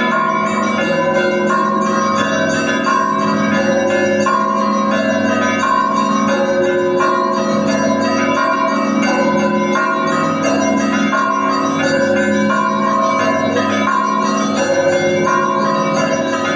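Russian Orthodox church bells ringing a festal peal together: many bells struck in a steady repeating pattern, with the ringing of the larger bells humming on underneath without a break.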